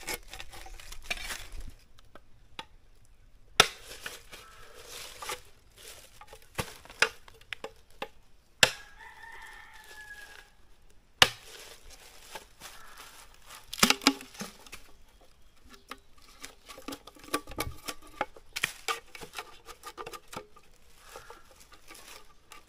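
Sharp, irregular knocks and scraping of a bolo knife working a green bamboo tube, with bamboo tubes being handled. A rooster crows once about nine seconds in.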